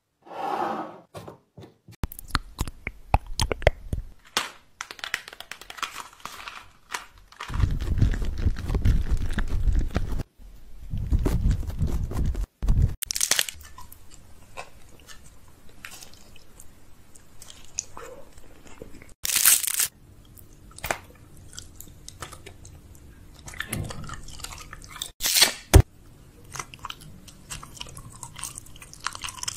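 Close-miked eating: wet chewing and biting, with several loud sharp crunches as a person bites into food.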